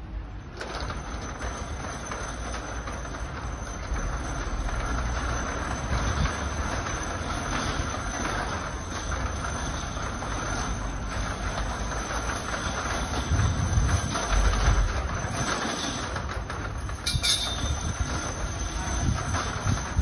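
Manual galvanised steel roller shutter being raised by hand: its slats rattle steadily as the curtain winds up, with one brief sharp click a little after three-quarters of the way through.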